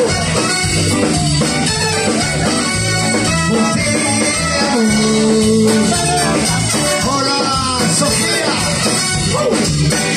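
Live band playing Latin dance music with singing, electric bass and guitars, loud and unbroken.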